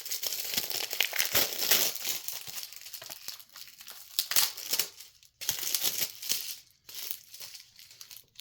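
Wrapping on a Blu-ray case being torn off and crumpled by hand. The crinkling and tearing are dense and irregular, with a few short pauses in the second half.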